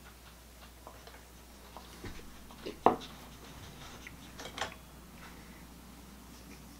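Glass tasting glass set down on a wooden tabletop with a sharp knock about three seconds in, among a few fainter taps and rustles.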